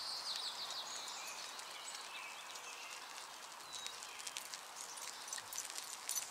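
Faint outdoor ambience with a bird chirping near the start. From about four seconds in comes a run of light clicks and jingles as a bicycle and a running dog come closer.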